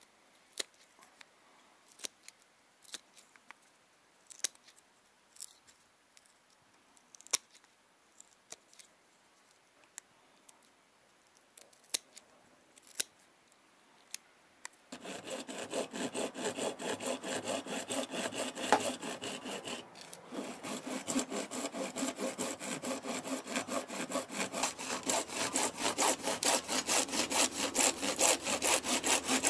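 Scattered sharp clicks as a small hand tool trims a plywood fitting. About halfway through, the sound changes abruptly to fast, steady back-and-forth scraping strokes of a hand tool working the material.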